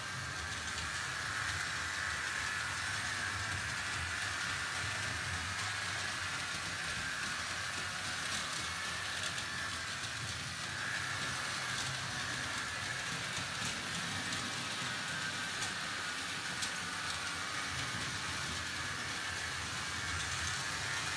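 Märklin H0 model freight train, pulled by a diesel locomotive, running steadily around a loop of metal three-rail track: an even whirr from the motor with a low rumble of wheels on the rails.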